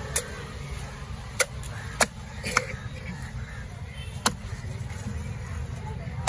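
Heavy fish-cutting knife chopping through a diamond trevally into a wooden block: about five sharp knocks at irregular intervals, over a steady low background rumble.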